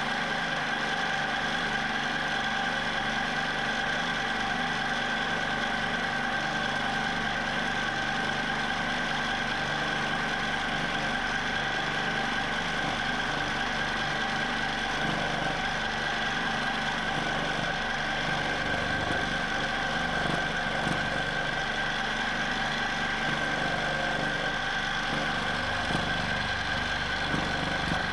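Q'nique 19 longarm quilting machine stitching in constant (manual) mode, its motor and needle running steadily at an even speed.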